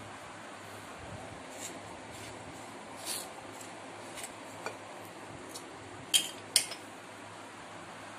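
Wooden spoon stirring a dry flour mix in a glass bowl: a few soft scrapes and scattered light clicks of the spoon against the glass, the two sharpest about six seconds in.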